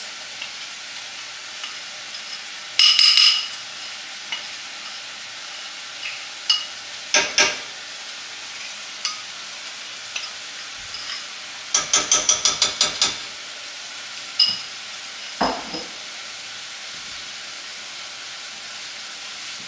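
Apples sizzling steadily in melted butter in a pot on the stove while a spoon stirs them, clinking against the pot now and then. About twelve seconds in there is a quick run of about ten taps, like a spoon knocked on the pot's rim to clear it.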